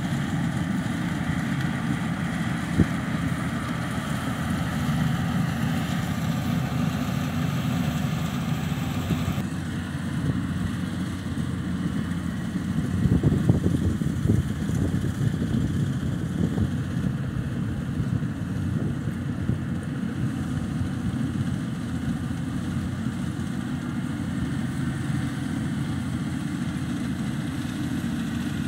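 Engine of a rice harvesting machine running steadily, with a single sharp knock about three seconds in and an abrupt change in tone about nine seconds in.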